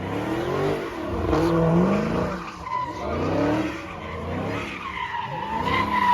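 Car engine revving up and down again and again while the tires skid, with a steady tire squeal coming in about halfway through.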